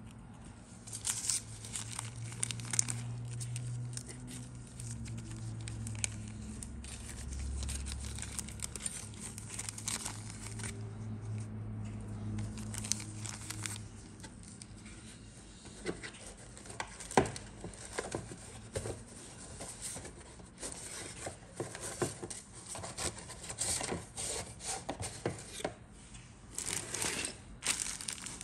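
Clear plastic parts bag crinkling and crackling as it is handled, in irregular bursts of sharp crackles that grow denser in the second half.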